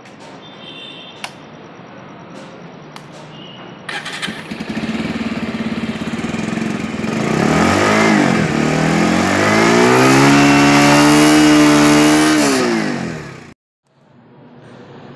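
Bajaj Pulsar 150 BS6's single-cylinder engine through its stock exhaust. It comes to life about four seconds in and runs at idle, is blipped once, then is revved up and held high for a few seconds before dropping back and cutting off sharply near the end.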